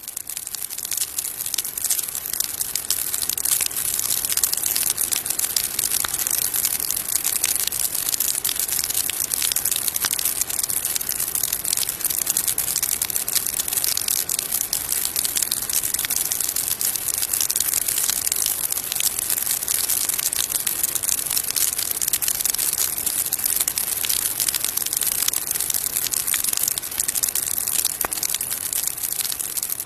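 A firework fizzing and crackling steadily, a dense hiss full of tiny sharp crackles, with a few louder pops.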